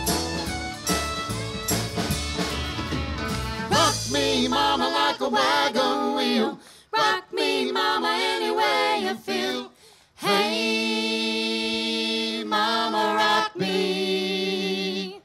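Live country band music. The full band with bass and drums plays until about five seconds in, when the low end drops out. A lone melody line carries on, with short breaks and a long held note, and stops abruptly at the end.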